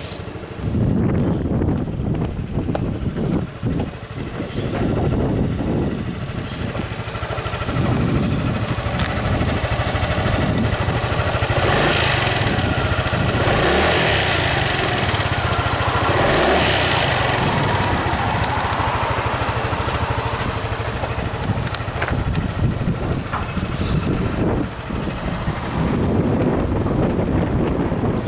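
Honda Forza 250 (MF13) scooter's single-cylinder engine idling steadily through its stock exhaust. It gets louder through the middle as it is heard close to the muffler.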